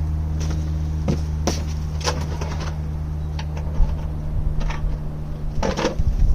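Scattered light clicks and knocks of metal parts being handled while a heater valve control cable is fitted, over a steady low hum.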